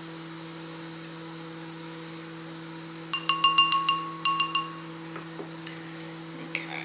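A thin wooden stick clinking against a ceramic bowl of melted oils: two quick bursts of about ten ringing clinks, over a steady low hum.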